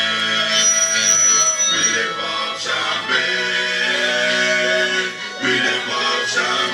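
Music playing, with a singing voice over instruments.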